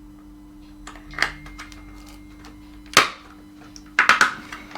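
A few sharp plastic clicks and knocks as a smoke alarm is handled and fitted back together: one about a second in, a louder one near three seconds, and a quick cluster near the end. A faint steady hum runs underneath.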